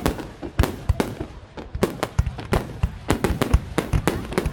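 Aerial fireworks going off: a rapid, irregular string of sharp bangs, several a second, overlapping and echoing.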